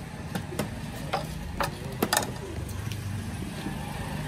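Crockery and utensils clinking: about six sharp clinks and knocks in the first half, the loudest pair about two seconds in with a short ring, over a low steady hum.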